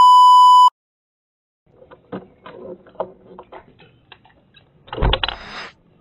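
A loud steady TV test-pattern beep lasting under a second, then a pause. After that come scattered plastic clicks and rustling as the doorbell camera is handled, with a louder clatter about five seconds in.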